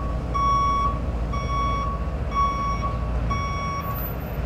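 Truck reversing alarm beeping, one steady tone about once a second, four times, over a low idling truck-engine rumble. The beeping stops shortly before the end.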